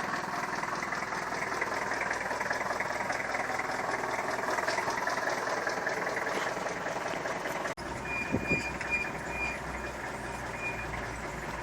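A vehicle's steady running noise. After a sudden break, a low engine hum with a run of short, evenly spaced high electronic beeps, a vehicle's warning beeper.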